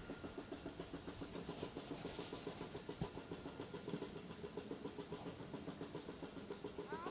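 Electric power pallet jack driving forward: a steady, rapid mechanical pulsing of about five beats a second. A short squeak comes near the end.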